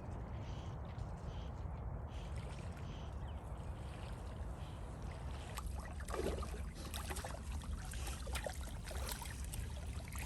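Labrador retriever splashing and sloshing through shallow marsh water on a retrieve, with irregular splashes starting about halfway in, over steady wind rumble on the microphone.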